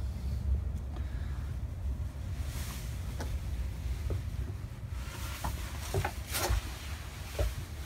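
Handling noise from a hand-held camera carried down into a sailboat's cabin: a steady low rumble, with a few short knocks and rustles in the second half.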